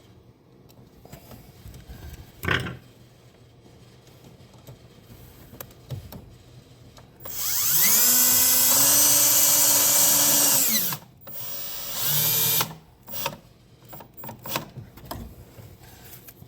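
Cordless drill driving a screw into a pinball cabinet: the motor spins up, runs steadily for about three and a half seconds and winds down. A shorter, quieter burst follows about a second later, and there is a single knock a couple of seconds in.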